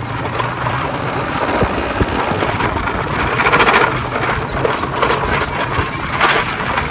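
Concrete mixer's engine running steadily with a mechanical clatter, rattling louder about three and a half and six seconds in.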